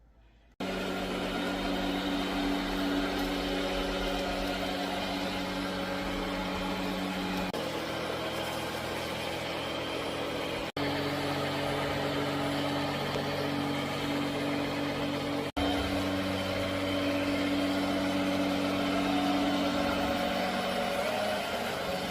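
Clien T24 robot vacuum cleaner running: a steady motor hum and whir that starts abruptly about half a second in and breaks off for an instant twice.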